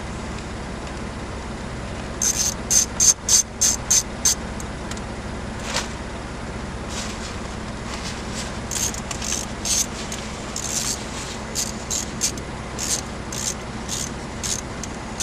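Hand ratchet or driver clicking in quick runs as it drives in the screws of the F-150's plastic steering-column shroud, over a steady low hum.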